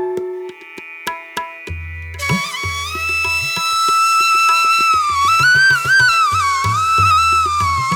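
Instrumental background music in a traditional Indian style. A flute plays a sliding melody that comes in about two seconds in, over tabla-like hand-drum strokes.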